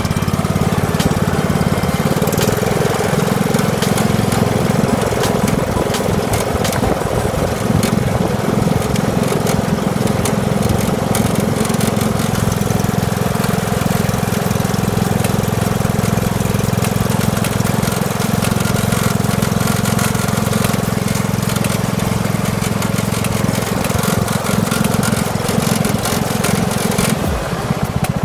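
McCulloch M125-97 lawn tractor's Briggs & Stratton engine running steadily while the tractor drives along, with scattered crackles from the tyres rolling over ice and snow.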